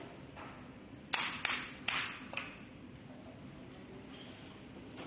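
Four sharp metallic clinks with a brief high ring, about a second in, from metal tools and parts being handled on a workbench.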